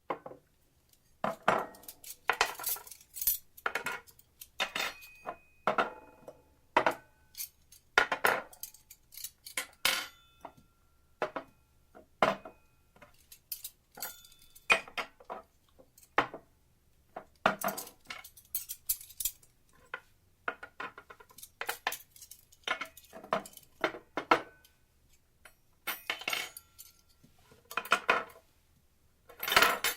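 Dishes and cutlery clattering and clinking in irregular bursts, some clinks ringing briefly. The sound starts suddenly after silence.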